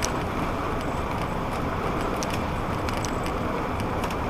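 Steady engine drone and road noise of an old bus cruising on the highway, heard from inside the cab, with a few faint ticks.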